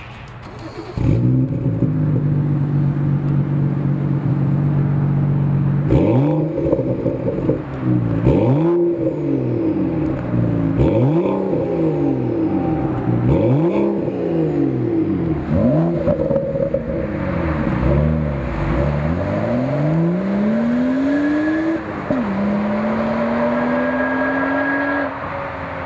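BMW F30 335i's turbocharged inline-six through a Corsa stainless 3.5-inch cat-back exhaust: it starts up about a second in and idles steadily, then is revved in several quick blips, each rising and falling in pitch. Near the end it accelerates hard, the pitch climbing, dropping sharply at an upshift and climbing again.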